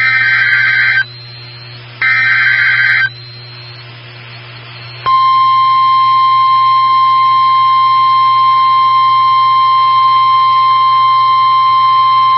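NOAA Weather Radio emergency alert: the last two of three SAME (Specific Area Message Encoding) digital header bursts, each about a second long, then after a two-second pause the steady 1050 Hz weather radio alert tone starts about five seconds in and holds. This is the signal that a warning, here a severe thunderstorm warning, is about to be broadcast.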